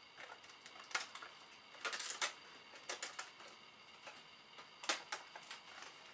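Thin plastic swirl decoration crackling and snapping in sharp, irregular clicks as it is pushed out along its perforated edge.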